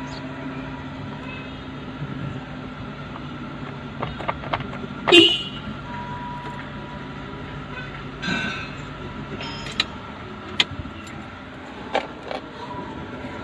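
Steady low vehicle hum, broken by a few sharp clicks and a brief toot about five seconds in, with a shorter one a few seconds later.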